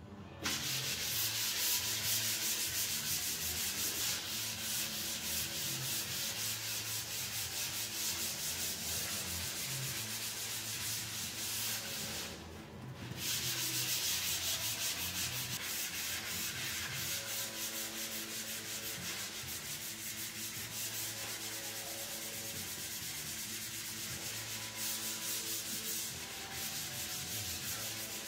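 Dried drywall joint compound being sanded on a wall: a continuous scratchy hiss that stops briefly a little before halfway, then carries on.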